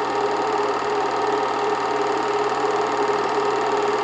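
8mm film projector running steadily: a continuous mechanical clatter over a low hum.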